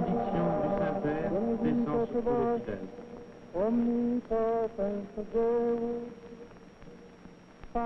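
Liturgical chant: voices singing long held notes, fuller at first, then a single melodic line of sustained notes with short breaks between them from about three and a half seconds in.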